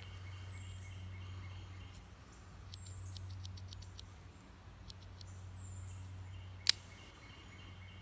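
Victorinox Fieldmaster Swiss Army knife's folding tools clicking as they are worked: a quick run of small clicks about three seconds in, and one sharp snap near the seventh second as a tool folds shut. Faint bird chirps now and then.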